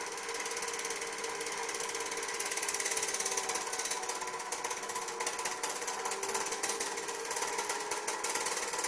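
Super 8 film projector running: a rapid, even clatter from the film-advance mechanism over a steady motor whine.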